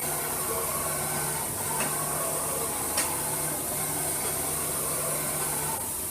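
Okuma Cadet Mate vertical machining center jogging its Z axis at 50% rate: the axis drive running with a low steady hum over a steady hiss, the hum breaking off briefly a few times.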